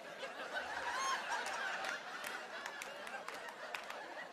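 Theatre audience laughing, swelling about a second in.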